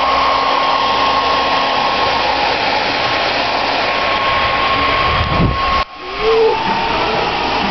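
Handheld hair dryer running, a steady rush of air with a high whine. Near six seconds in it drops out for a moment, then comes back with a slightly lower whine.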